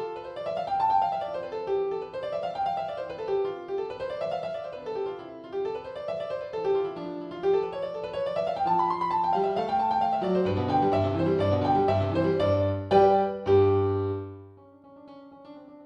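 Background keyboard music: quick notes running up and down in repeated waves, with low bass notes joining about two-thirds of the way in and a sharp accent near the end before it drops quieter.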